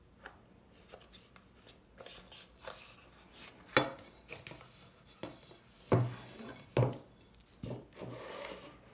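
A bone china plate and its round cardboard box being handled on a wooden table: a series of sharp knocks and clinks, the loudest a little before halfway and twice more about two-thirds through, with softer rustling near the end.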